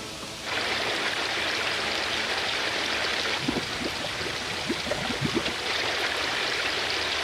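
Steady rushing of water, a loud even hiss that starts abruptly about half a second in.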